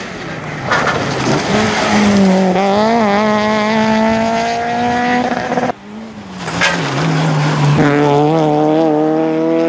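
Rally car engines at high revs, one car after the other. The first, a Peugeot 206, holds a high note that climbs slightly as it slides through a gravel corner, then cuts off abruptly about six seconds in. A Citroën Saxo follows at full throttle, its note held high, with a sharp crack just after it comes in.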